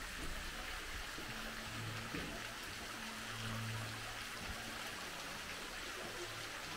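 Steady hissing water noise, like running or falling water, with a faint low hum for a couple of seconds in the middle.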